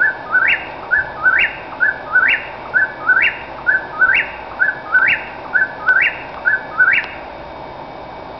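Whip-poor-will singing its repeated three-part 'whip-poor-will' phrase about once a second, each phrase ending in a sharply rising note; the song stops about seven seconds in.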